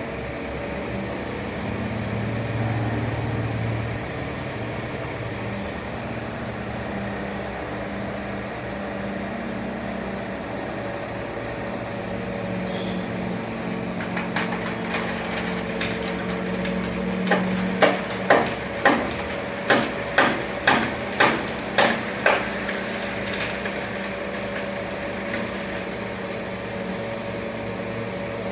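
Road-construction machinery engine running steadily, joined partway through by a run of sharp knocks, about two a second, the loudest some ten strikes in a row before they stop.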